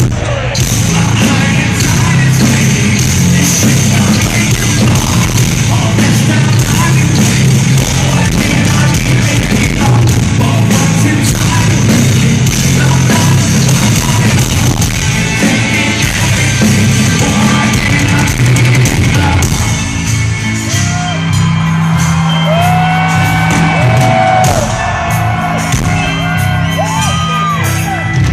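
A live metal band plays at full volume with a singer over it, heard through a phone's overloaded microphone so the sound is distorted. About two-thirds of the way through, the low end turns to a choppy, stop-start riff.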